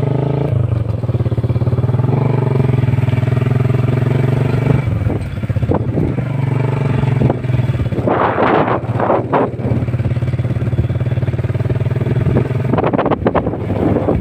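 An engine running at a steady speed throughout, with short gusts of rushing noise breaking in twice in the second half.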